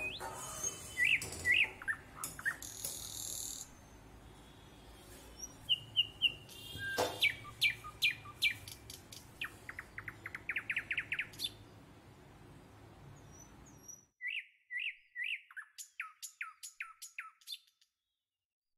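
Small birds chirping in short repeated notes and quick trills. A faint steady hiss under them stops abruptly about fourteen seconds in, and the chirps carry on alone.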